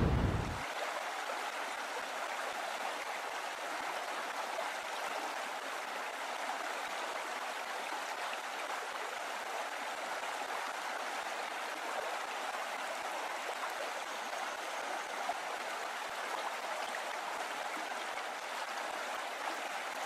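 Running water trickling steadily, an even rush with no pauses.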